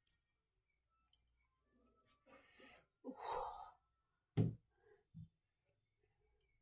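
A person's heavy breathing through the nose and mouth: two noisy breaths or sighs about two and three seconds in, then a short low thump a second later.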